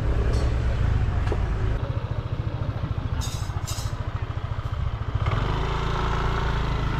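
Motorcycle engine running with a low, uneven pulsing beat, which turns steadier and fuller about five seconds in.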